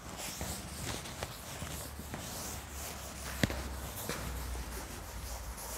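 Blackboard duster being rubbed across a chalkboard in repeated wiping strokes, erasing chalk writing, with a single sharp knock about three and a half seconds in.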